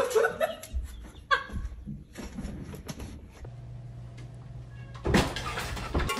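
Domestic cat meowing, a short bending call at the start and another brief one about a second in, among scattered knocks and handling noises.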